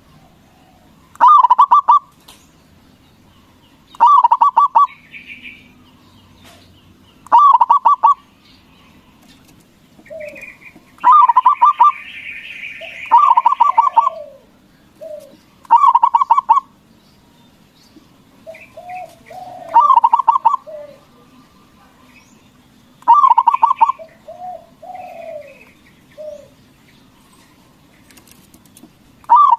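Zebra dove (Javanese perkutut) cooing: short bursts of rapid cooing notes repeat about every three to four seconds, with quieter chirps and short gliding calls between them.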